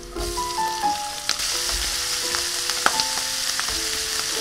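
Sliced sea snail meat dropped into hot butter and oil in a wok, sizzling steadily as it fries, with a few knocks of a wooden spatula stirring it. The sizzle swells just after the start as the snails go in.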